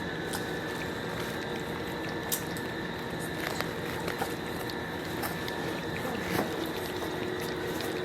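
American bully puppies lapping and smacking at a wet mush of blended puppy food and milk replacer, making scattered small wet clicks over a steady background hum.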